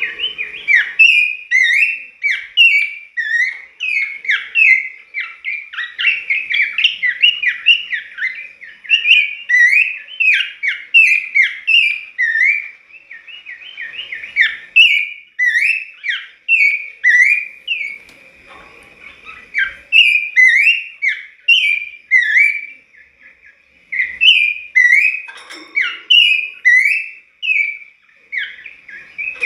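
A caged pelanduk semak, a babbler, singing a fast, unbroken string of short, clear whistled notes. It eases off briefly a little past halfway and pauses once more for about a second after two-thirds.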